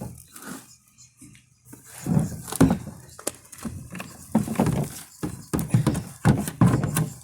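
Soil and potatoes thudding out of an upturned 5-gallon bucket into a wheelbarrow: a quiet start, then a string of dull knocks and thumps about two seconds in that keep coming to the end.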